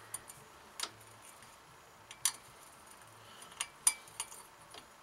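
Light metallic clicks and taps, about eight of them spaced irregularly, as a screw on an aluminium free-float handguard is hand-tightened with an Allen key.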